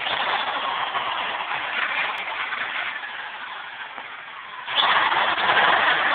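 Electric drill running as it drills into the wall around the window frame. It tails off about four seconds in and starts up again sharply about a second later.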